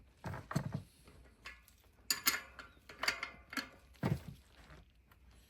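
Steel wrenches and the axle of a bicycle rear hub clinking and knocking as the axle is worked loose. About five short, irregular clinks with pauses between.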